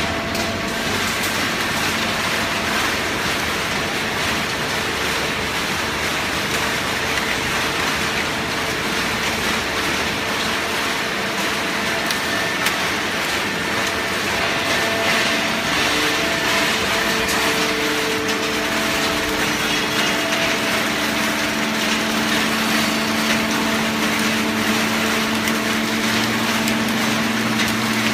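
Corrugated cardboard baler machinery running: a steady, loud industrial noise with a hum. Lower hum tones come in about two-thirds of the way through.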